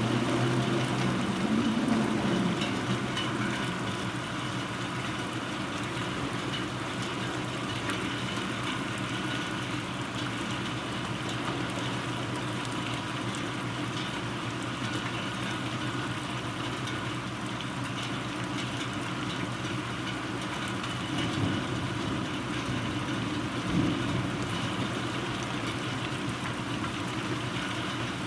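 Steady rain falling hard during a thunderstorm. A low hum runs underneath near the start and swells again briefly about three-quarters of the way through.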